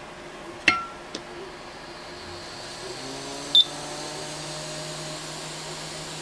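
Quick 861DW hot air station's air pump fan spinning up on its repaired 3D-printed impeller, a low hum that rises slightly in pitch and then runs steadily and quietly. A sharp click comes about a second in and a short beep about halfway through.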